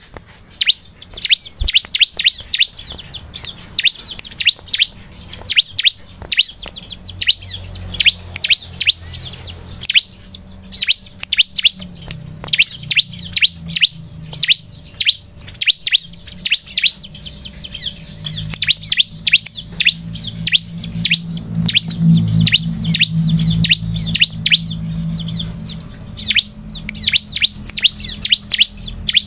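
Bar-winged prinia (ciblek) singing: rapid runs of high, sharp chirps, each sweeping down in pitch, in bursts of a second or two with short gaps. A low hum runs underneath from about seven seconds in until near the end.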